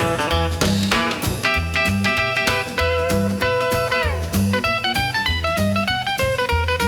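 Instrumental break in a rockabilly song: an electric guitar lead over a pulsing bass line and a steady swing beat, with the guitar sliding down in pitch about four seconds in.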